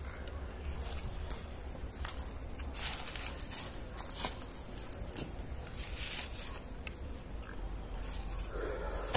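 Faint, scattered scuffs and small clicks over a steady low rumble, with no single clear event.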